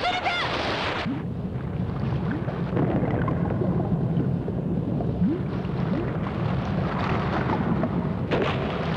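Animated sound effects of a dog plunging into water: a splash in the first second, then a muffled, low underwater rumble. A brighter rush of water sound comes back near the end.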